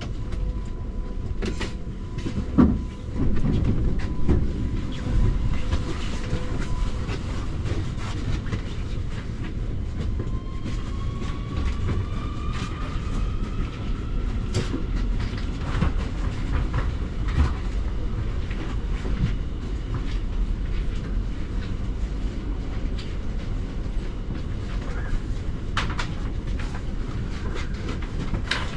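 Underground station sound around a driverless U-Bahn train standing at the platform: a steady low rumble with scattered clicks and knocks, the loudest a knock a couple of seconds in. Partway through, a whine rises in pitch and then fades.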